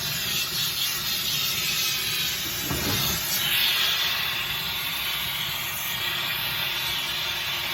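Jeweller's torch flame hissing steadily as it melts gold in a casting crucible; the hiss turns brighter about three seconds in.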